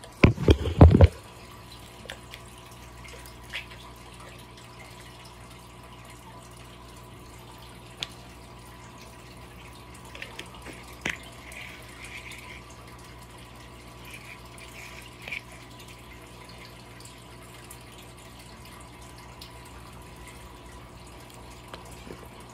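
Phone knocked and handled for about a second as it is set down, then the steady hum and light water trickle of an aquarium's filter, broken by a few faint clicks and rustles.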